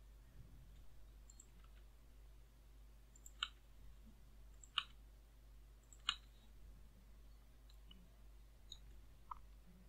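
Computer mouse buttons clicking: three sharp single clicks about a second and a half apart in the middle, and a couple of fainter ones near the end, over a faint low hum.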